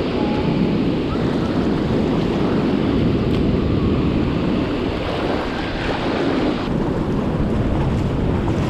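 Fast river rapids rushing and splashing in a steady, loud wash of water noise.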